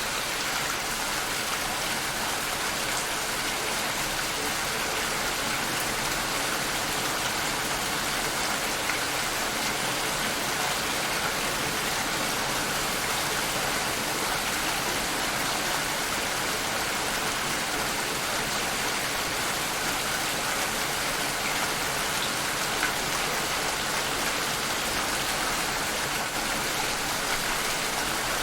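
Steady rain falling, an even hiss of many drops with faint scattered patters.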